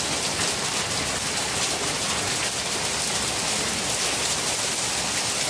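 Heavy downpour: a steady hiss of rain falling on roofs, ground and plants, with water pouring off a roof edge.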